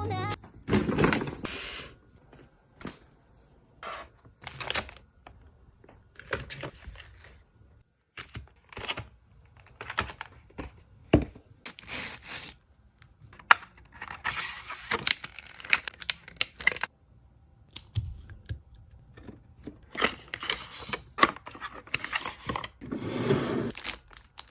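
Packaging being handled and opened by hand: irregular rustling and tearing with sharp clicks and taps, in short bursts separated by brief pauses.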